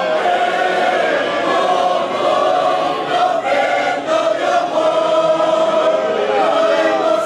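Large mixed choir of men's and women's voices singing a Spanish hymn together, with long held notes.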